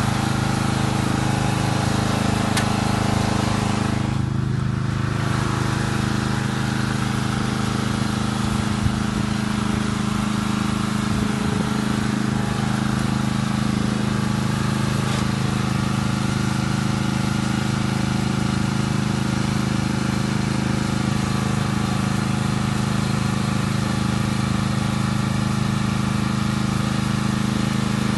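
Lawnmower engine running steadily at a constant speed.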